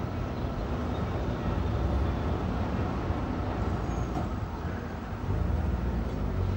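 Electric tram running along a city street, a steady low rumble mixed with traffic noise, a little louder near the end.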